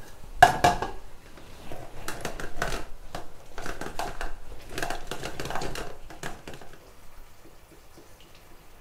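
Lemon halves being pressed and twisted by hand on a metal citrus juicer, in a string of short, rough strokes that die down about six seconds in.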